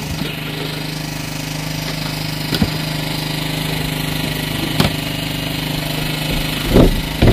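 Generator engine running steadily with a low, even hum, and a few short knocks over it.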